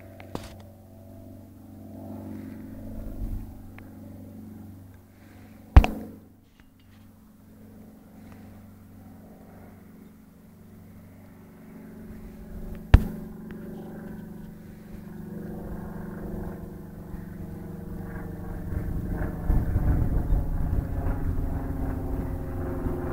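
Cessna light aircraft's single piston engine and propeller, a steady drone that grows louder as the plane comes in to land and rolls out on the grass. Two sharp knocks, about six and thirteen seconds in, are the loudest moments.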